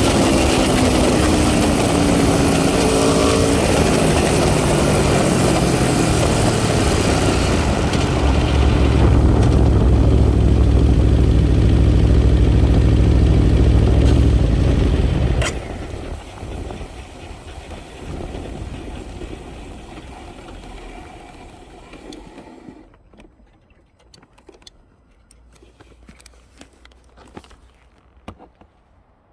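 Aprilia RSV4 RR V4 engine running, revs falling from a blip, then settling into a low rumble before it suddenly cuts out about halfway through. This matches the recurring fault in which the engine shuts itself off. Faint ticks follow as it stands stopped.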